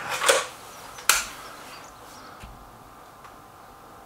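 Stoeger RX20 S2 break-barrel air rifle being cocked and reloaded between shots: a short scraping swell, then a sharp click about a second in.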